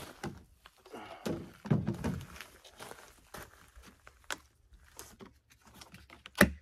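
Clicks, knocks and rustling of a fuel can and chainsaw being handled while the saw is fuelled, with one loud thump near the end.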